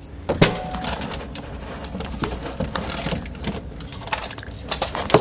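Handling noise: irregular rustling and knocks as the camera is moved about and bumped, with one sharper knock about half a second in and another flurry near the end.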